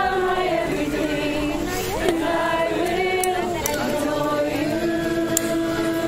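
A group of voices singing a slow hymn, with long held notes that move slowly from one pitch to the next.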